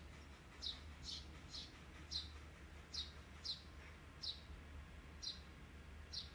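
A small bird chirping over and over: short, high chirps that fall in pitch, repeating irregularly about once or twice a second, faint, over a low steady hum.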